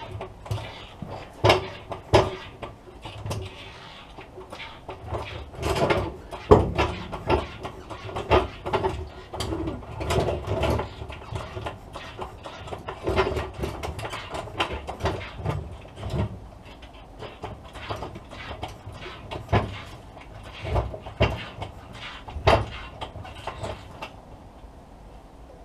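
Irregular metallic clanks, knocks and scrapes of hand tools and car parts being worked under a car, with a few louder clusters of knocks spread through.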